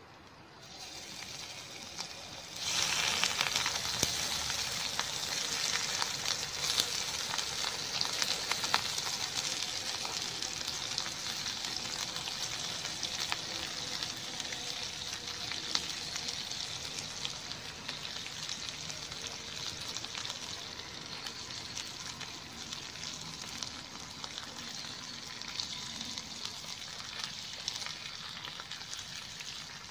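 Pieces of raw beef sizzling and spitting in hot oil in a stainless steel pan as they go in. The sizzle starts abruptly about three seconds in and runs on with small crackles, easing slightly near the end.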